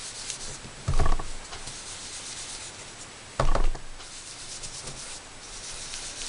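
A sponge being rubbed and dabbed over paper cardstock to apply ink, a scratchy rubbing sound. Two soft, loud thumps come about a second in and again about two and a half seconds later as the sponge is pressed down.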